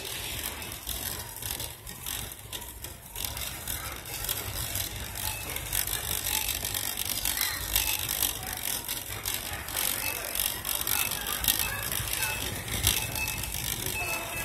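Wire shopping cart rattling, its wheels rolling on a hard store floor as it is pushed along.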